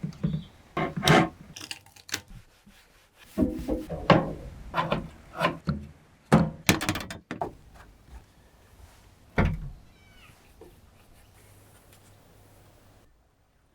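Irregular clicks, knocks and rubbing of hard parts being handled, in clusters for the first ten seconds or so, then only a faint steady background.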